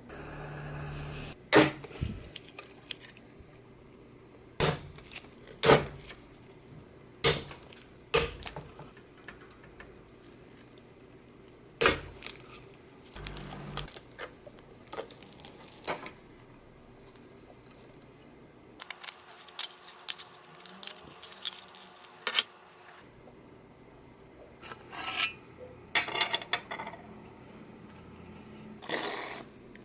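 Small metal parts clinking and knocking now and then, a dozen or so separate sharp clinks with pauses between, as parts of an old mini lathe are handled and worked on.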